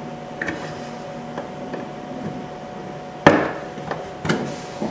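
Plastic interior door trim of a 1998 VW Beetle being pried and pulled out of the door panel: a few light plastic clicks, then one sharp snap a little over three seconds in as it pops free, followed by a few softer clicks.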